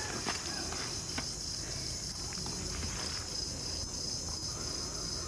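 A steady, high-pitched drone of insects, with a few faint light clicks.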